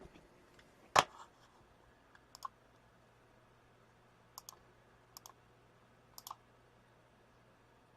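Light handling clicks: one sharp tap about a second in, then four faint double clicks spread over the following seconds, over a faint low hum.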